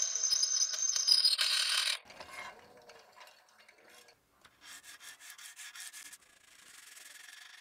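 A drill press gives a high whine that falls slightly in pitch and cuts off about two seconds in. Then comes hand sanding of the spring-steel knife blade with abrasive paper on a stick: quick back-and-forth rubbing strokes at about five a second, easing into a softer steady rasp near the end.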